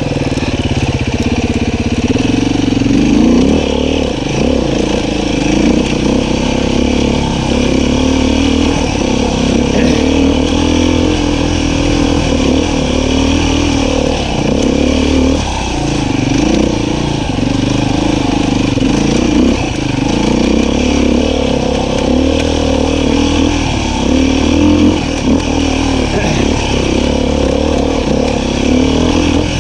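Beta 500 RR-S dirt bike's single-cylinder four-stroke engine running steadily on the trail, its revs rising and falling with the throttle.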